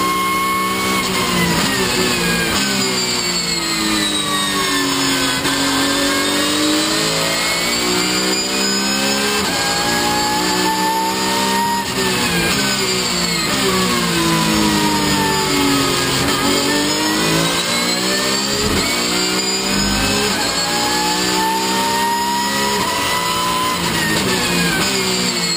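Porsche 911 GT3 Cup's flat-six racing engine heard from inside the cabin at speed on track. The engine note drops in long sweeps as the car slows and climbs again as it accelerates, twice over.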